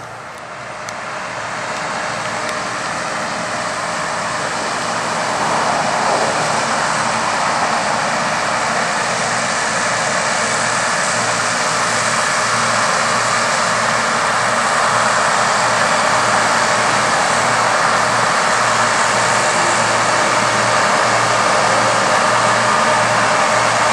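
Massey Ferguson 8570 combine harvesting corn, its engine and threshing running as a loud steady drone with a pulsing low hum; it grows louder over the first five or six seconds as it comes closer, then holds steady.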